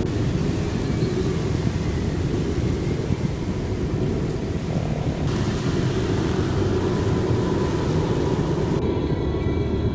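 Steady low rumble with the hiss of heavy rain above it.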